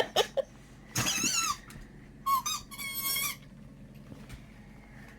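Squeaky dog toy being squeezed and chewed, giving a wavering squeal about a second in and two shorter squeaks a little later.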